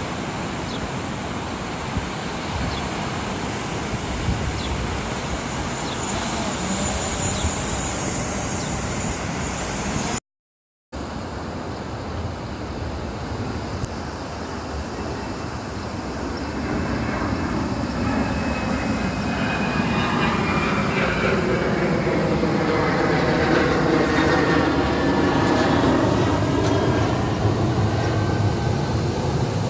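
Steady rushing noise, joined in the second half by a motor hum that swells and bends up and down in pitch, with a brief dropout about ten seconds in.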